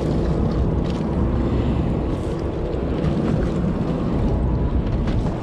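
Wind buffeting the microphone, a steady low rumble, over the wash of harbour water around a small fishing boat.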